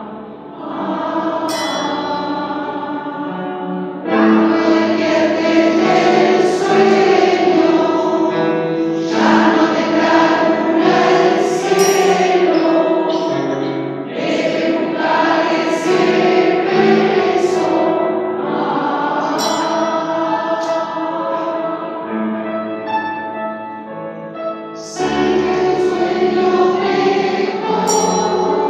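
Mixed choir of women's and men's voices singing a song in several parts, with piano accompaniment. The singing grows fuller and louder about four seconds in, eases off a little past the middle and swells again near the end.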